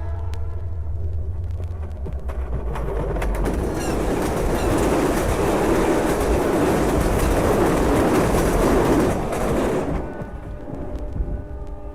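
Sound-effects recording of a train passing on a vinyl record: a rushing rumble builds over several seconds to a loud peak, then drops away suddenly, with a faint horn near the end.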